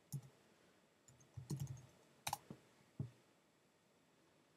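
Faint computer keyboard keystrokes as a web address is typed and entered: a few scattered taps over about three seconds, with one sharper click near the middle.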